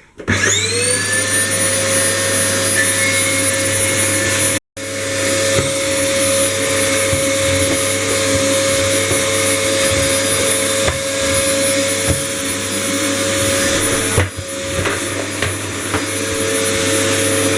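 Samsung vacuum cleaner switched on, its motor spinning up with a rising whine and then running steadily at high speed with a loud hiss. It cuts out for an instant about five seconds in, and around fourteen seconds the note dips briefly among a few knocks.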